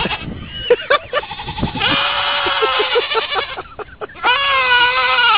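Goats bleating in long, human-like screams: short bleats, then one long held cry about two seconds in, and another starting near the end.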